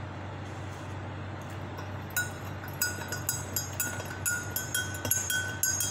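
A metal spoon stirring a drink in a tall glass mug, clinking against the glass in rapid ringing strikes, about three or four a second. The clinking starts about two seconds in, over a low steady hum.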